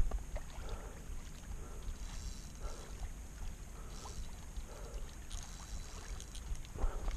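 Wind rumbling on the microphone, with a short bump right at the start and a few faint scattered taps over the steady rumble.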